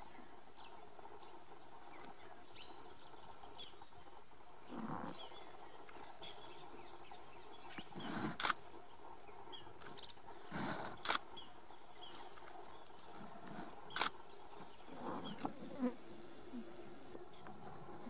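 Steady buzzing drone of insects with short, high bird chirps scattered through it, and a handful of sharp clicks around the middle.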